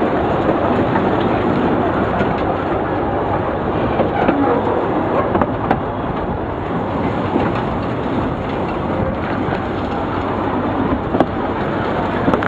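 Narrow-gauge train running uphill, heard on board through an open door: the engines of its two Romanian-built Lxd2 diesel locomotives pulling, over steady wheel-and-rail noise with a few sharp clicks from the track.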